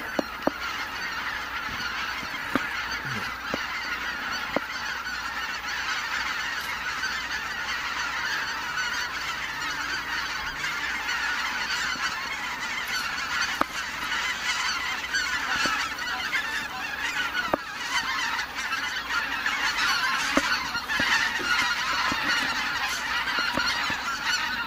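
A large flock of greater white-fronted geese calling together in a dense, unbroken chorus of honks as they take off and fly overhead, growing a little louder near the end.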